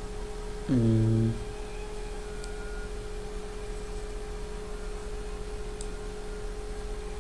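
A steady electrical hum with a faint constant tone. About a second in, a voice makes one short hummed 'mm'.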